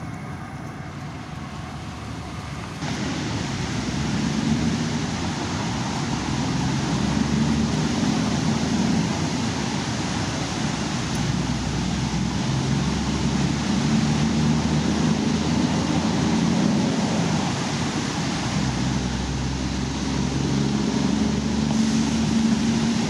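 Steady rushing outdoor noise of wind on the microphone over choppy river water, with a fluctuating low rumble. It comes in abruptly about three seconds in.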